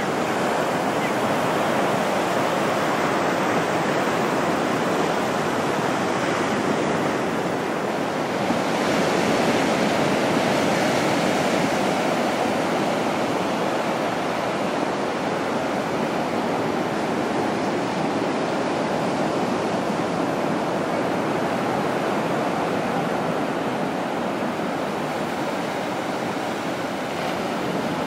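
Small, ankle-to-shin-high ocean surf breaking and washing up the sand in glassy, windless conditions. It is a steady wash that swells slightly about nine seconds in.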